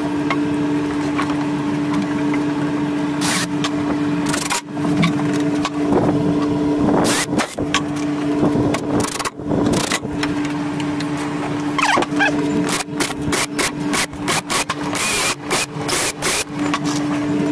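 Wooden framing lumber being handled: boards knocking and scraping against studs, with a quick run of sharp knocks near the end. A steady low hum runs underneath.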